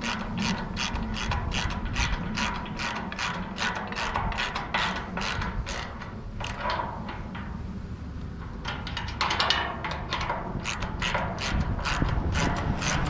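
Ratchet wrench clicking at about four clicks a second as half-inch lock nuts are tightened onto the bolts. The clicking stops for a few seconds about six seconds in, then starts again.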